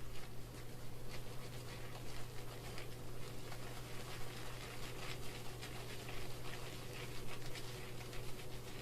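Silvertip badger shaving brush whisking shaving cream in a Corning bowl: a continuous wet swishing and crackling of dense, low-water lather. A steady low hum runs underneath.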